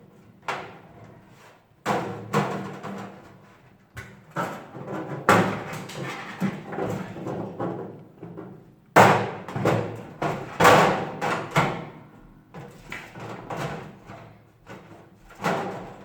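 Sheet-metal parts of an electric oven knocking and clanking as they are handled and fitted back together: a series of sharp hits, each ringing out briefly.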